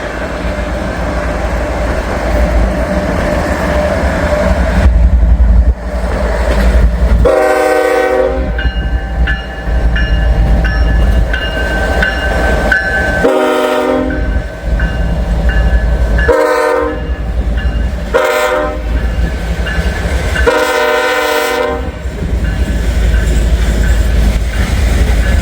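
Norfolk Southern diesel locomotive's air horn sounding five blasts for a grade crossing, the first, second and last held longer, as the train moves off with wheels clacking over the rails. A crossing bell rings between the blasts, and strong wind rumbles on the microphone.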